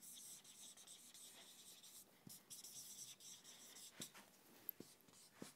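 Faint scratching and squeaking of a marker pen across a whiteboard as words are written, in short strokes, with a few light taps of the tip.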